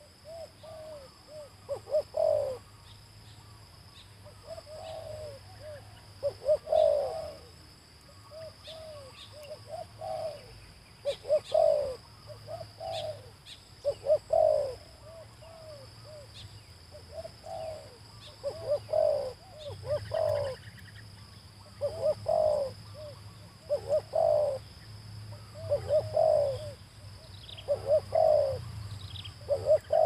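Spotted dove cooing: short phrases of several low notes, repeated about every two seconds, with a faint chirping of small birds in the background.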